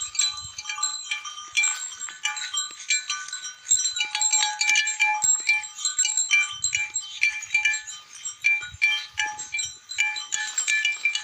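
Several livestock neck bells clanking irregularly and overlapping as a herd grazes, each at its own fixed pitch.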